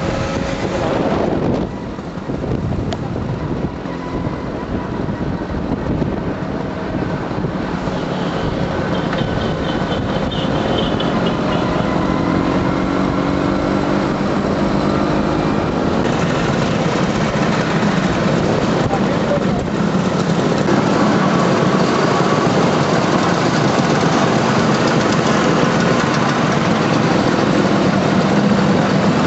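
Motor scooter engines running steadily while the scooters ride along together. The sound grows a little louder in the second half.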